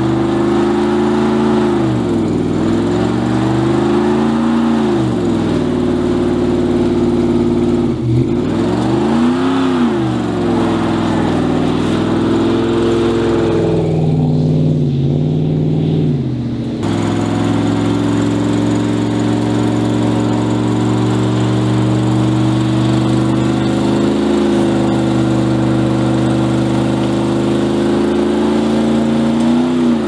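A 2000 Dodge Dakota's 4.7-litre V8 revving hard during a burnout, the rear tires spinning. The revs dip and climb again several times, drop for a few seconds around the middle, then hold high and steady.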